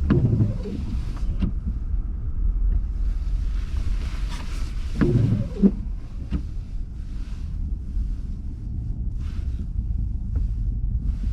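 A vehicle running with a steady low rumble, with some wind-like hiss over it. Two brief low voice-like sounds come in, near the start and about five seconds in.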